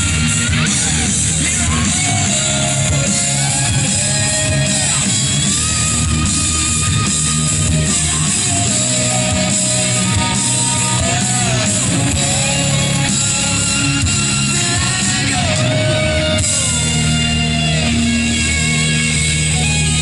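Rock music with a singing voice and guitar.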